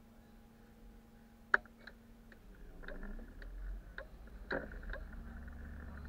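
Bus engine idling with a steady hum, then pulling away from standstill as a low rumble builds from about halfway. Sharp clicks and ticks sound throughout, one loud click about a second and a half in.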